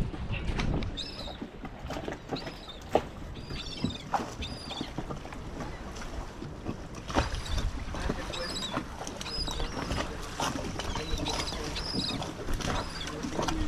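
Small birds chirping over and over in short high calls, over a steady background hiss, with a few sharp knocks.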